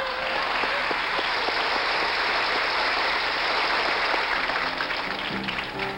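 Studio audience applauding. A music cue with steady held notes comes in about five seconds in.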